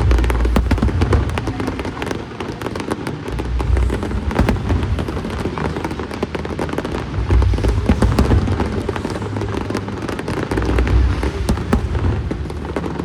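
Aerial fireworks display: a dense, continuous crackling and popping of bursting shells, with deep booms rolling in every few seconds.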